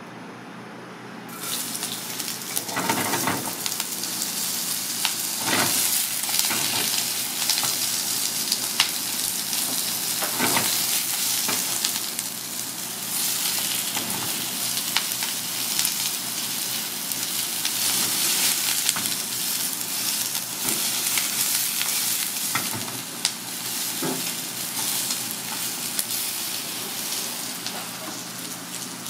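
Pieces of mackerel pike (saury) and sliced vegetables sizzling in hot oil in a wok. The sizzle starts suddenly about a second in, as the food hits the pan, and runs on as a steady frying hiss. A few knocks come as the pan is stirred and tossed.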